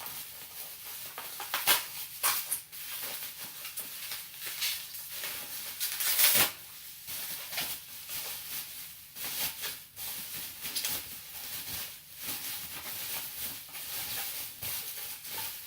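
Packaging rustling and crackling as a vacuum cleaner floor head is unwrapped and handled, in irregular crinkles with a louder crackle about six seconds in.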